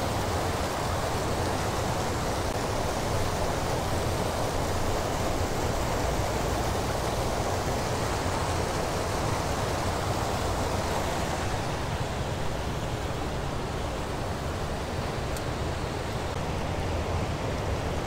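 Creek whitewater rushing in a steady, unbroken roar.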